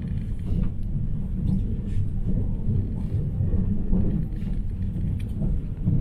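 A JR Hokkaido 789 series electric train running, heard inside the passenger car: a steady low rumble from the wheels on the rails, with a few faint light clicks.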